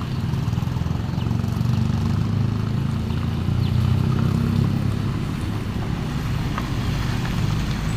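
Road traffic: a vehicle engine running steadily with a low rumble.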